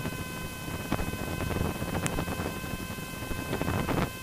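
Cessna 150's Continental O-200 engine and propeller droning steadily at cruise power of about 2300 RPM, heard from inside the cockpit, with a set of steady high-pitched tones and a few faint clicks over it.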